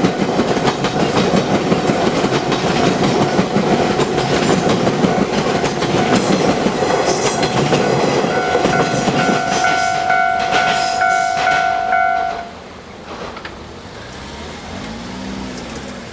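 Limited express Kitakinki train running over a level crossing, its wheels clattering on the rail joints, with the crossing's warning bell ringing over it in quick repeated tones. The train noise and the bell both cut off about twelve seconds in, leaving only a faint background.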